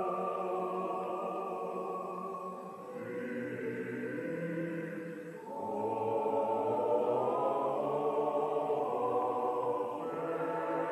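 Choral music: a choir singing long held chords, moving to a new chord about three seconds in, again about five and a half seconds in, and once more near the end.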